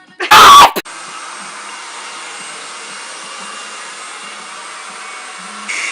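A very loud, brief burst of noise about a third of a second in, then a hair dryer blowing steadily. The airflow gets louder near the end.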